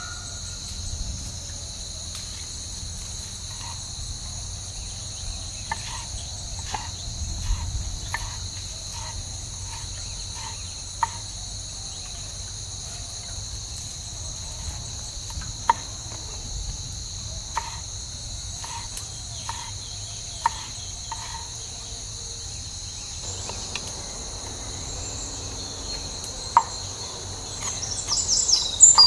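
Steady chorus of insects chirping, with the sharp taps of a knife on a wooden cutting board as green chillies and shallots are sliced, the taps coming irregularly about once a second.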